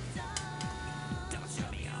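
Background music: a song with a steady, repeating bass line and a held note in the first half.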